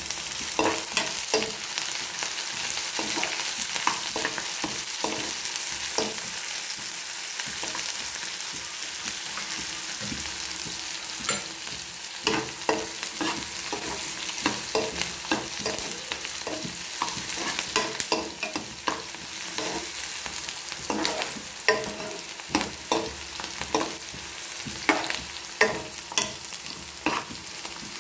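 Chopped onions and green chillies sizzling in hot oil in a pan, with a spatula stirring and knocking against the pan in runs of quick strokes, most of them around the middle and in the last few seconds.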